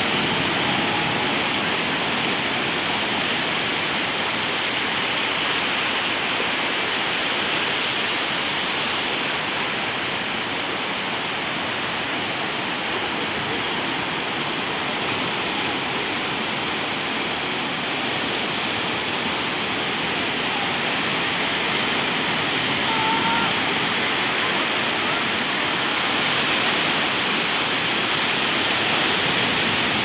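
Small sea waves breaking and washing up a sandy shore: a steady rush of surf that swells a little near the end.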